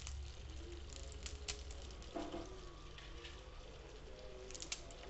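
Dry instant noodle cakes crackling as they are broken by hand over a frying pan, with a few sharp cracks about a second and a half in and near the end. Underneath, the masala water in the pan simmers with a soft bubbling.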